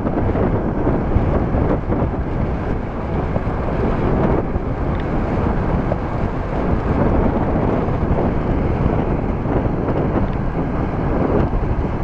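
Strong storm wind buffeting the microphone in a steady low rumble, over small wind-whipped waves breaking and washing onto a gravel lakeshore.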